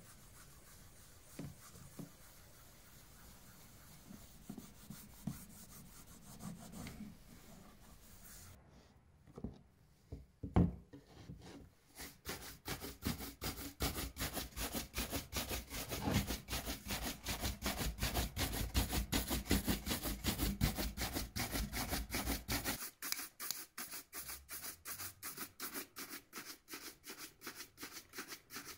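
Cloth rubbing wax polish into a leather shoe upper, with soft, uneven scuffs. A single knock comes about ten seconds in. Then a shoe brush buffs the leather with rapid, even back-and-forth strokes, several a second, which grow a little softer near the end.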